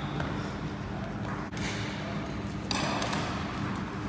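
Badminton rackets striking a shuttlecock during a doubles rally, a few sharp hits with the shuttle going back and forth.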